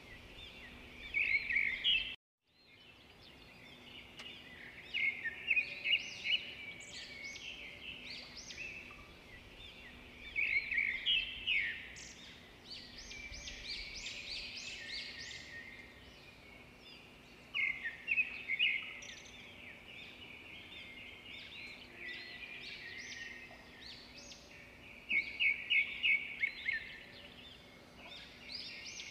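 Small birds chirping and twittering in quick clusters of high notes, bursts coming every few seconds.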